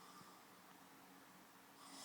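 Near silence in the pause between a sleeping man's snores, with only faint breathing; the next snore starts right at the end.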